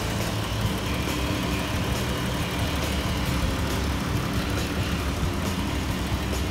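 Dodge Journey's 3.6-litre Pentastar V6 idling steadily, heard from the open engine bay.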